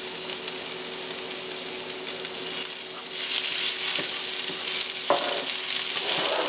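Diced onion and green bell pepper sizzling as they sauté in a skillet, stirred with a wooden spoon. The sizzle is steady and gets louder about three seconds in.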